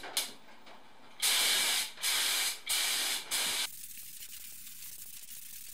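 Compressed-air paint spray gun hissing in short trigger bursts: a brief one at the start, then four passes of about half a second each in quick succession. The bursts stop about two-thirds of the way in, leaving a fainter steady hiss with light crackling.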